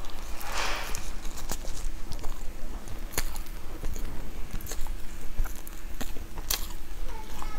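Close-miked eating: biting into and chewing a soft, crumb-coated cream cake, with a burst of noisy crunching about half a second in and then scattered small mouth clicks and crackles.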